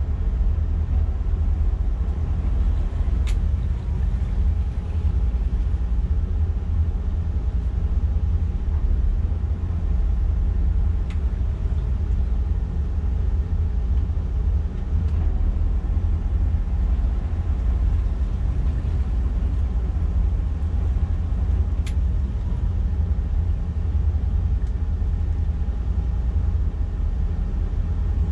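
Twin MerCruiser 7.4-litre V8 inboard engines running at low revs while the boat is manoeuvred at docking speed. They give a steady deep rumble.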